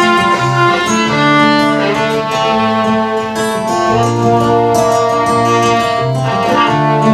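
Fiddle playing a slow melody of long held notes over acoustic guitar accompaniment, an instrumental passage with no singing.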